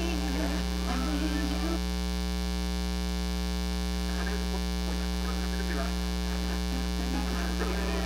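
Steady 60 Hz mains hum and buzz, a ground-loop noise induced into the recording by the camera's AC power adapter.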